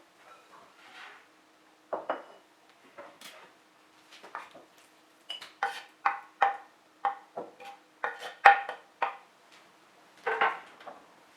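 Dishes and cutlery clinking and knocking together, scattered at first, then a quick run of about a dozen clinks and a last cluster near the end.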